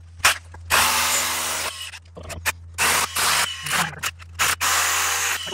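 Makita cordless drill boring small holes into rock in several start-stop bursts, the longest about a second, with a whirring motor under the grinding hiss of the bit.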